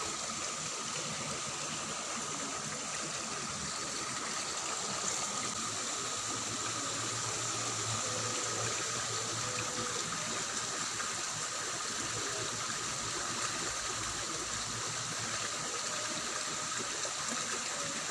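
Water flowing steadily in a small ditch, an even rushing with no break.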